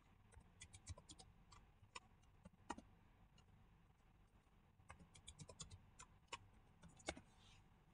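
Faint computer keyboard keystrokes. A quick run of about ten key presses comes first, then a pause of about two seconds, then a second run of about ten: a password typed and then typed again to confirm it.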